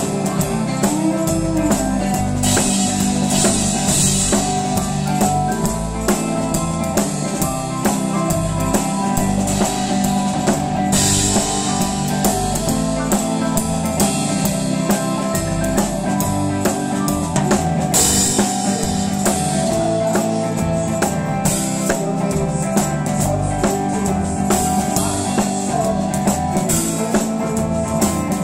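Live band jamming: a drum kit keeping a steady beat under electric guitar.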